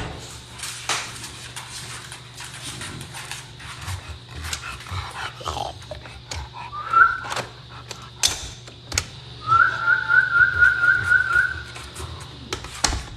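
Dog whining: a short rising whine about seven seconds in, then a longer wavering whine lasting about two seconds, mixed with scattered knocks and clicks.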